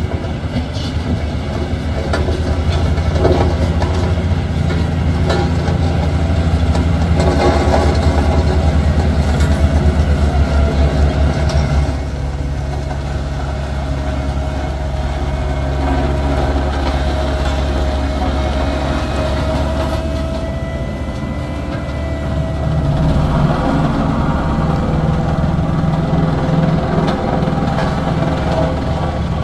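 Heavy vehicle engine running with a low, steady drone, loudest for the first twelve seconds, easing off, then picking up again about 23 seconds in.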